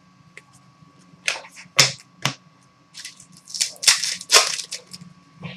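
Trading cards being flipped and slid against each other in the hands: three sharp snaps of card on card, then a run of papery swishes as the stack is sorted.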